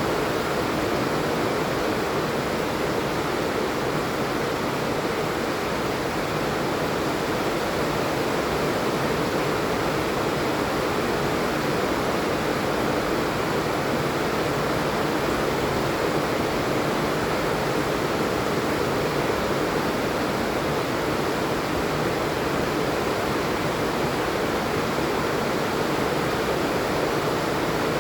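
Steady heavy rain, an even hiss with no separate drops or changes.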